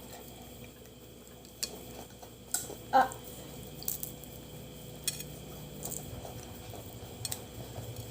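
Eating sounds at a table during a crab meal: scattered clicks, taps and clatter of crab shell, utensils and dishes, with one louder knock about three seconds in. A faint low rumble sets in partway through, like a vehicle outside.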